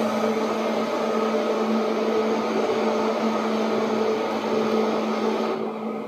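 Seibu 2000 series electric train running, heard from on board: a steady hum with a few higher tones over a rumbling wash of noise. The upper hiss drops away about five and a half seconds in.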